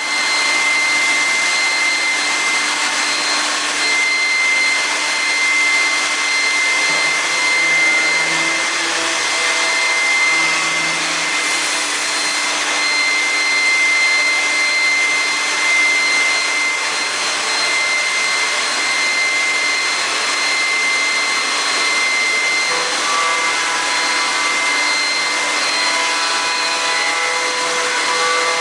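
Kraft Maschinenbau TCF 70 CNC woodworking machining centre running: a steady high whine over a loud rushing hiss.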